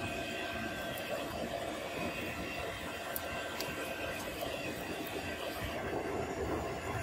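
Charcoal fire burning in a small brick forge: a steady rushing noise with a few sharp crackles.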